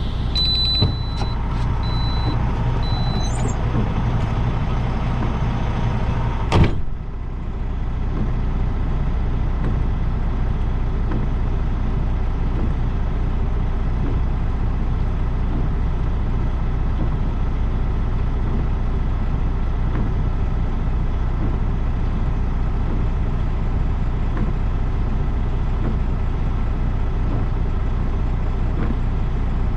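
Semi-truck's diesel engine running steadily at low revs, with a repeating high beep for the first three seconds or so and a single sharp knock about six and a half seconds in.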